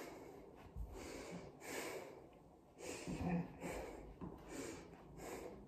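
A person's breathing: a series of short, noisy breaths through the nose and mouth, about one a second.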